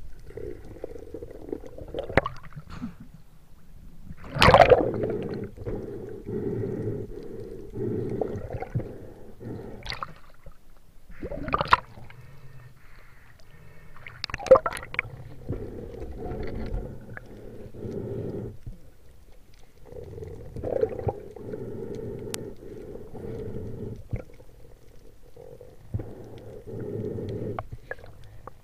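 Water sloshing and gurgling around a waterproof camera housing as a spearfisher swims and breaks the surface. It comes in uneven muffled surges every few seconds, with several sharp knocks and splashes.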